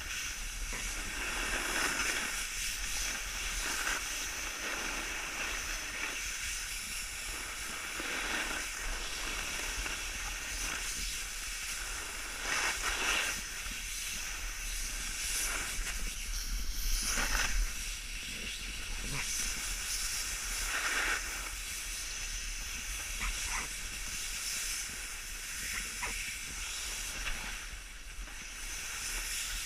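Steady hiss of a rider sliding downhill over packed snow, swelling into louder scrapes several times as the edges dig in on turns, with a low wind rumble on the microphone.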